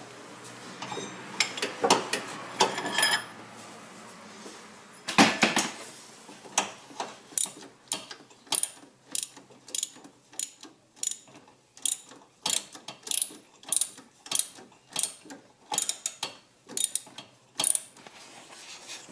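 Ratchet wrench backing out an alternator mounting bolt: some metal clatter and one loud clank about five seconds in, then a steady run of sharp ratchet clicks, about two a second, as the handle is swung back and forth.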